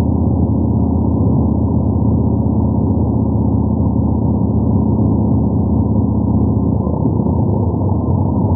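Yamaha MT-01's 1670 cc air-cooled 48° V-twin running at a steady cruising pace, a deep, even engine note. The note shifts slightly about seven seconds in.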